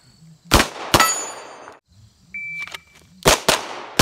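Beretta 92 Elite LTT 9mm pistol firing four shots in two quick pairs, the first about half a second in and the second near the end. Steel plate targets ring on the hits, with a short ding midway.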